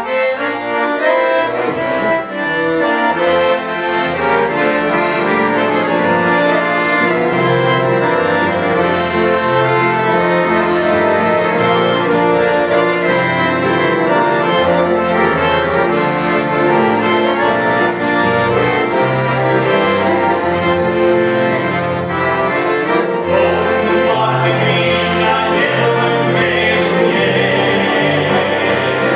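Two piano accordions playing the instrumental introduction to a hymn tune, over a steady pulsing bass line.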